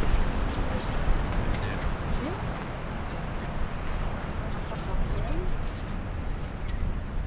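A continuous high-pitched insect chorus buzzing and pulsing rapidly, over a low rumble of wind on the microphone.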